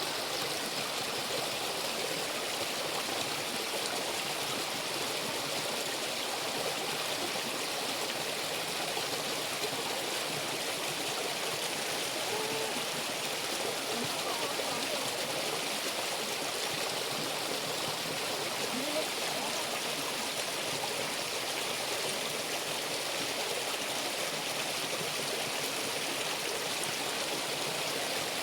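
Stream water running steadily over rocks, an unbroken rushing hiss.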